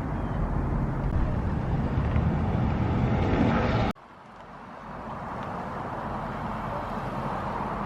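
Car engine running, a dense low rumble that swells for about four seconds, then drops out sharply at an edit and fades back in.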